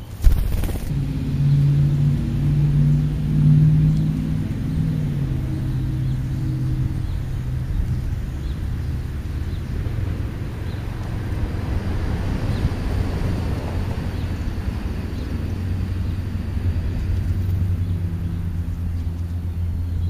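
A sudden thump just after the start, then a motor vehicle engine humming for several seconds over a steady low rumble that carries on throughout.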